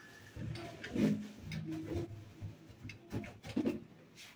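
Faint, irregular knocks and rustles of toiletry bottles and containers being handled and moved about.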